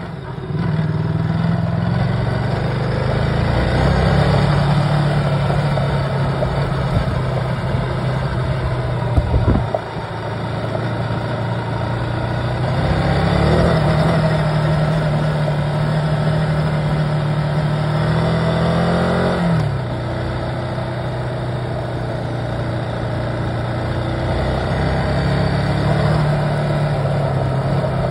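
Vehicle engine heard from inside the cabin while driving on a gravel track, with tyre and gravel noise underneath. There is a brief clunk and a drop in the engine note about a third of the way in. Near two-thirds of the way the engine revs up and its pitch falls away at a gear change.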